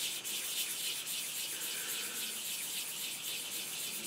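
Coarse sanding stick rubbed back and forth over a styrene plastic model part, a steady scratchy hiss of repeated strokes, cleaning up shallow ejector pin marks.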